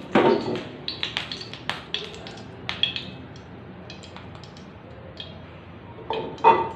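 A run of light taps and clicks from kitchen handling of a glass oil bottle and a frying pan on a gas stove, with a louder knock at the start and another near the end.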